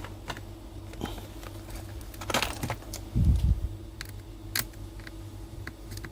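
Small clicks and taps of tools and laptop parts being handled on a workbench during a MacBook Air screen replacement, with a dull thump about three seconds in, over a steady low hum.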